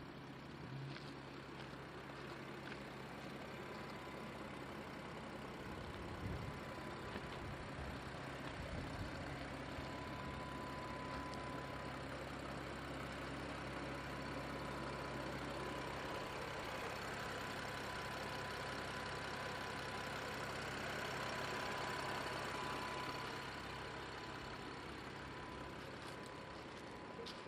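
BMW M4's twin-turbo 3.0-litre straight-six idling steadily.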